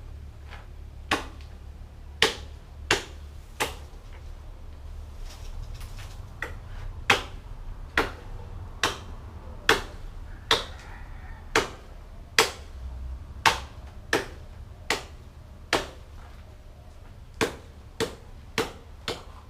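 Repeated chopping strokes of a blade into wood, cutting tree branches: about twenty sharp blows, roughly one a second, with two short pauses.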